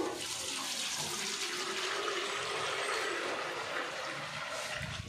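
Thin lacquer finish mix being poured from one can into another to blend it, a steady pour of liquid.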